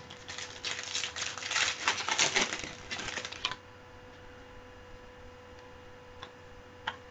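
Trading cards and their packaging being handled: a quick run of small crisp clicks and rustles for about three and a half seconds, then a couple of faint clicks.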